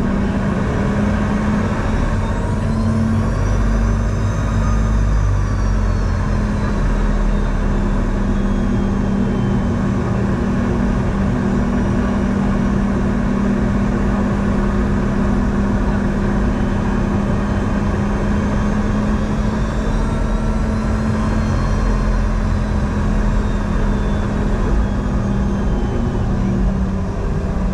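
Cabin noise of a Boeing 717-200 heard from a seat near its rear-mounted Rolls-Royce BR715 turbofans: a steady engine drone over low rumble, with a high whine that rises and falls twice as the engine speed changes.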